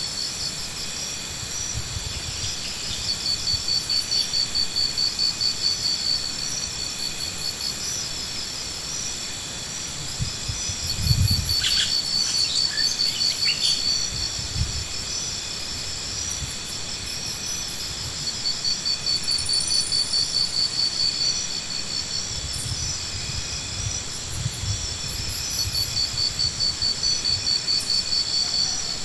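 Insects chirping steadily in fast pulsed trains at a few fixed high pitches, several overlapping. About eleven seconds in there is a dull thump with a few short higher calls.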